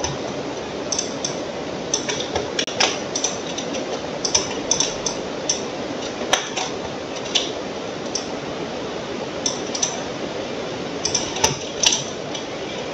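Computer mouse clicking at irregular intervals, single clicks and quick pairs, over a steady background noise.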